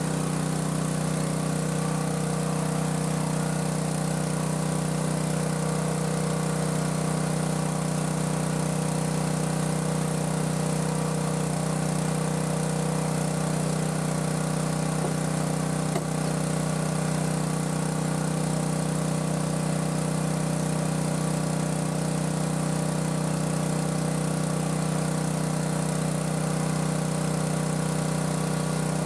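Small gasoline engine of a portable water pump running steadily at one constant speed, with the splash of its discharge jet, as it pumps water out of a partly sunk boat.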